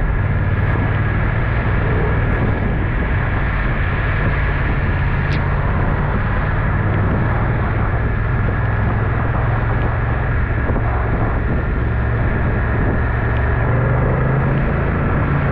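Motorcycle engine running at low city speed, with wind noise on the camera's built-in microphone and tyres on a wet road, steady throughout.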